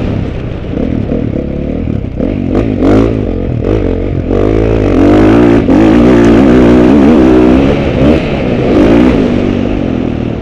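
Motocross dirt bike engine revving hard, its pitch climbing and dropping again and again as the rider works the throttle, heard from a helmet-mounted camera.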